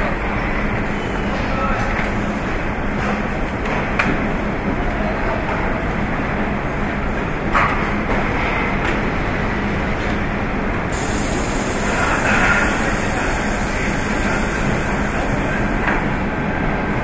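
Car assembly-line floor noise: a steady machinery rumble and hum, with two sharp knocks, and a steady high hiss that comes in abruptly about two-thirds of the way through.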